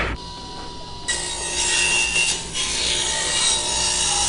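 Steady sawing in a school workshop, starting about a second in after a short quieter stretch, heard from an old vinyl record.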